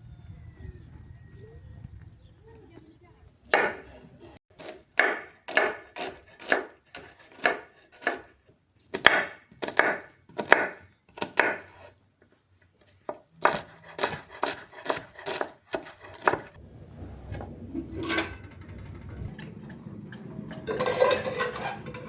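Rhythmic chopping on wood, about two strokes a second, in two runs with a short pause between. Then one lone stroke and a brief clatter near the end.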